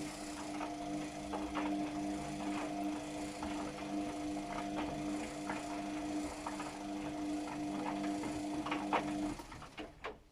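Luxor WM 1042 washing machine turning its drum during a Cotton 40° wash: a steady motor hum with irregular clicks, stopping about nine seconds in.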